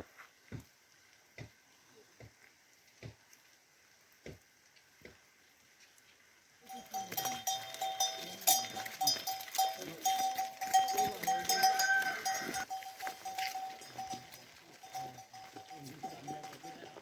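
Soft knocks about once a second, then, about seven seconds in, much louder livestock sounds with bells ringing and clanking.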